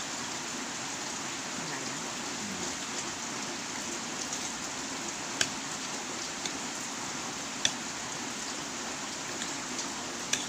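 Heavy rain falling steadily, with a few sharp clicks scattered through it.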